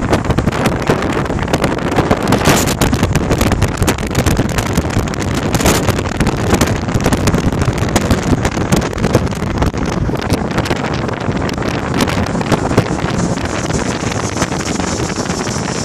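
Wind buffeting the microphone of a phone held out of a moving vehicle's open window, crackling over the steady rush of the vehicle and its tyres.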